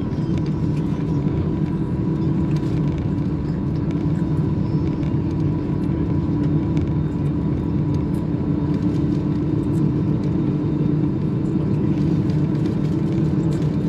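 Inside the cabin of an Airbus A320 rolling along the runway after landing: a steady rumble of the engines and the aircraft moving over the ground, with a faint steady whine.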